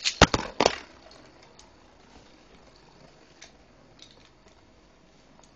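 Lego Beyblades, spinning tops built from Lego, launched into a plastic stadium: a few sharp clacks within the first second as they land, then a faint hiss with occasional small ticks as they spin.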